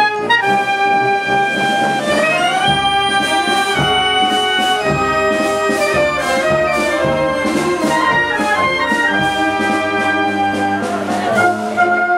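Italian street wind band playing a march: clarinets and saxophones on the melody over brass and sousaphone bass, with a steady beat.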